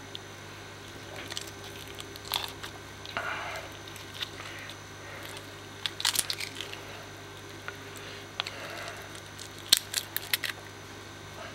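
A knife cutting and scraping flesh off the skull of a severed African catfish head: scattered short crunching and tearing sounds, with a cluster of sharp clicks near the end.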